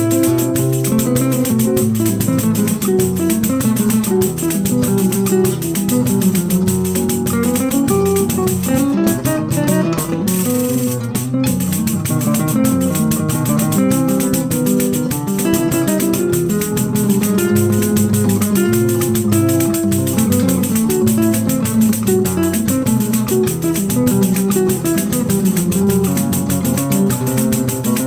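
Two nylon-string acoustic guitars playing a samba tune, with a pandeiro keeping a steady rhythm of hand strokes and jingles.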